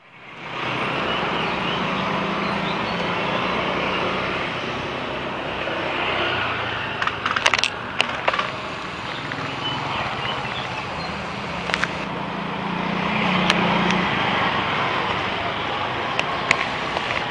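Road traffic with motorcycles passing, a low engine hum swelling twice, and a few sharp clicks in the middle and near the end.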